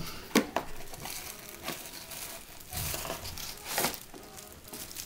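Paper and clear plastic wrapping crinkling and tearing by hand as a small packaged part is unwrapped: uneven rustling with a few sharper crackles.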